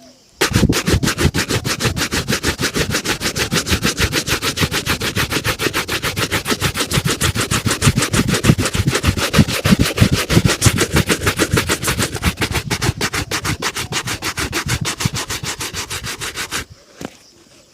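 A shoe being buffed during a shoe shine with rapid back-and-forth rubbing strokes, several a second, in a fast even rhythm that stops about a second before the end.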